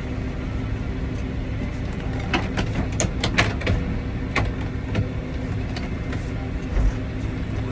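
Tractor engine running steadily, heard from inside the closed cab, with a few sharp clicks and rattles between about two and five seconds in.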